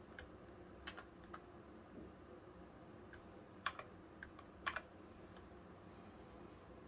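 Key presses on a Xenics StormX Titan SE membrane gaming keyboard: a dozen or so scattered clicks over the first five seconds, the loudest pairs a little before four and nearly five seconds in, as the LED backlight brightness is stepped through its levels.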